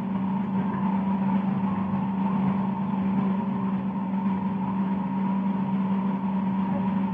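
A steady hum, unchanging throughout, with a low tone and a fainter higher whine over a noisy hiss.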